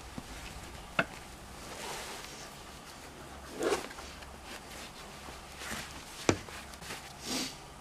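Two sharp knocks about five seconds apart, with brief scuffing and rustling between them: a person shifting on dirt and handling things.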